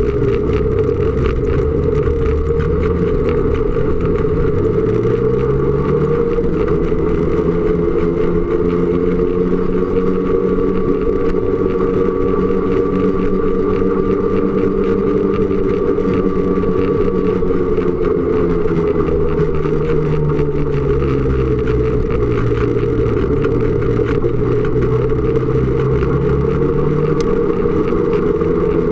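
Snowmobile engine running on the move, its pitch climbing in the first few seconds, holding steady, dropping about two-thirds of the way through and climbing again near the end as the machine speeds up and slows down.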